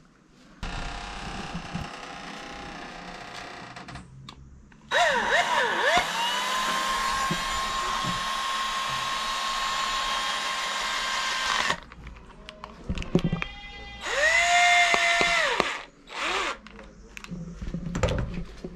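Cordless drill/driver running in several bursts while driving a screw through a hole drilled in a dive mask. The longest run lasts about seven seconds, its motor whine climbing quickly and then holding steady; a shorter run with a steady whine follows near the end.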